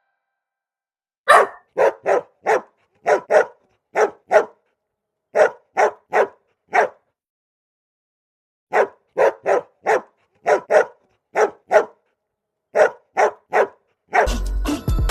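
Golden retriever barking, starting about a second in, in quick runs of three to five barks with short pauses between the runs.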